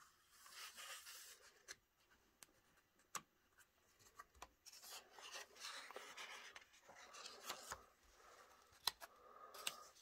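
Paper pages of a thin instruction booklet rustling as they are turned and handled, with a few sharp page flicks.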